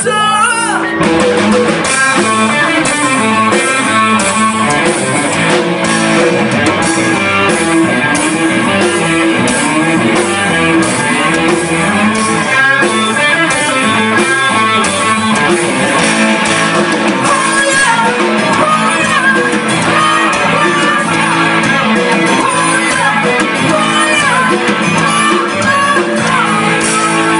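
Band music with guitar to the fore, at a loud, even level and with no clear singing.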